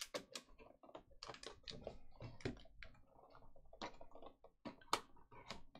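Light, irregular taps and clicks of hands handling a cardboard trading-card box and lifting out its foam insert.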